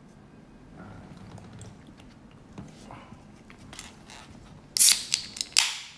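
Paper takeout wrappers and bags being handled: light rustles and taps, then loud crinkling of the paper close to the microphone in the last second or so.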